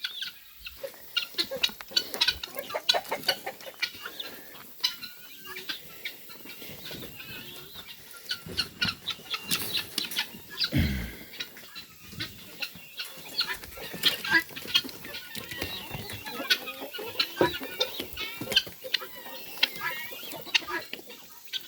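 A flock of chickens clucking: many short calls in a busy, uneven stream, with a brief low thump about halfway through.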